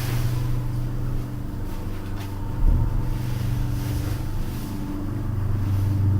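Lift car running, a steady low mechanical hum with a single low thump about two and a half seconds in.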